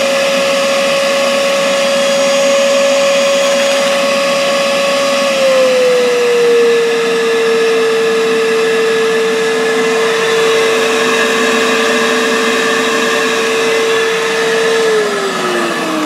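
Hoover PurePower 1500-watt upright vacuum cleaner running, its motor giving a steady high whine. About five seconds in the pitch drops a little and holds, and near the end it falls away as the motor winds down.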